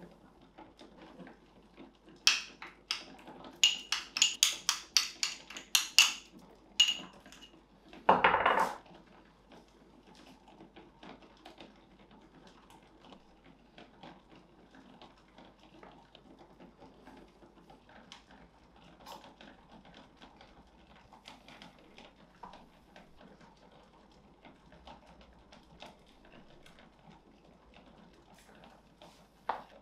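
A metal utensil clinks sharply and repeatedly against a small glass bowl for a few seconds, followed by one louder scrape. After that there is only faint soft scraping, as butter is spread on bread with a spoon.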